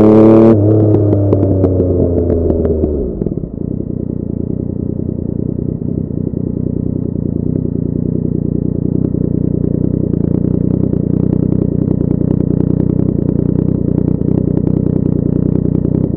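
Yamaha XSR900's three-cylinder engine through a Cobra full exhaust, coming off the throttle with the revs falling for about three seconds, then settling into a steady idle.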